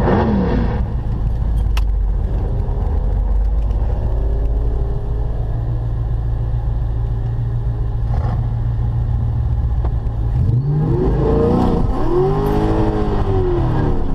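Supercharged V8 drag car engine idling with a deep, loud rumble. About ten seconds in it is revved up and let back down once.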